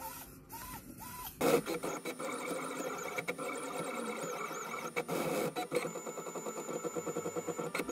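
Open-frame FDM 3D printer at work: its stepper motors whir and whine in shifting pitches as the print head moves back and forth. It starts suddenly about a second and a half in.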